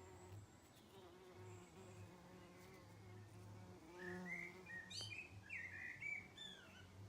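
Faint, steady buzzing of a solitary wasp (Ancistrocerus gazella) on the wing. About four seconds in, a small bird sings a short run of sweeping chirps over it for two or three seconds.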